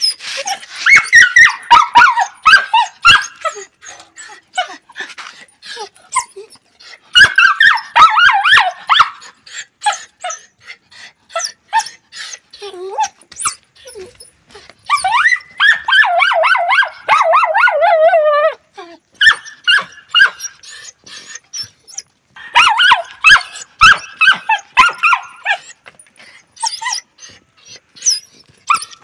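Dog whining and yelping in repeated bursts of quick high cries. One long drawn-out whine comes about halfway through and drops in pitch as it ends.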